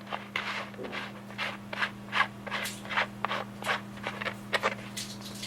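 Irregular rubbing and scraping strokes, about two a second, as a humidifier wick filter is handled by hand, over a steady low electrical hum.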